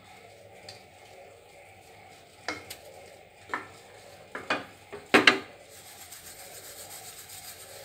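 Thaen mittai balls rolling in granulated sugar in a plastic tray as it is shaken: a gritty rubbing of sugar crystals, with several sharp knocks of the tray in the middle, the loudest about five seconds in.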